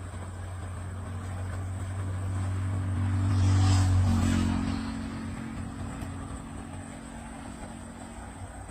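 An engine passing by: a low running hum grows louder to a peak about four seconds in, drops in pitch as it goes past, then fades away.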